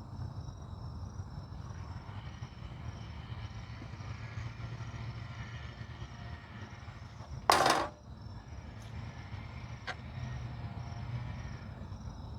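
A brief, loud scrape of something being handled, about two-thirds of the way through, and a small click a couple of seconds later. Under these run a steady low hum and faint, evenly pulsed high chirping like crickets.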